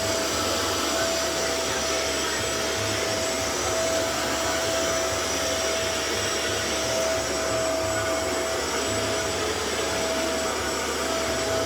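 Hoover SmartWash carpet cleaner motor running steadily: an even whir with a steady tone through it.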